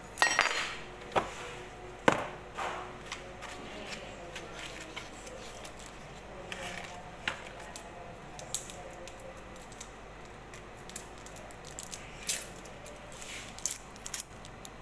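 Kitchen-counter handling sounds: a few sharp knocks as containers and utensils are set down, the first and loudest ringing briefly, then light clicks and crisp crinkling, clustered near the end as a foil-wrapped stock cube is handled.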